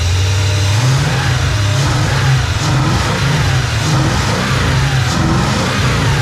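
Mercedes-Benz 560SEC's V8 engine running, its revs rising and falling about once a second.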